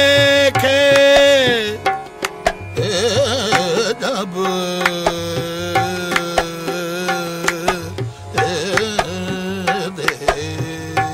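Qawwali music: tabla playing a steady rhythm under long held sung notes, with a wavering melodic vocal run about three seconds in.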